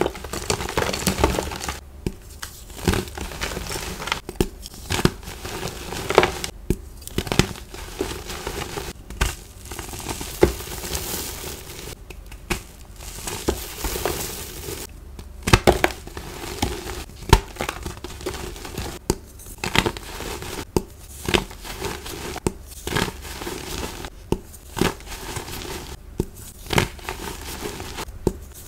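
Hands squeezing and crushing blocks of dyed gym chalk, a dry crumbling crunch full of sharp crackles. It comes in repeated squeezes with short pauses between.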